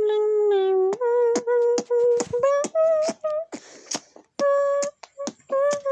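Rhythmic melody of long held notes and short notes that step up and down in pitch, broken by sharp clicks and two short bursts of hiss.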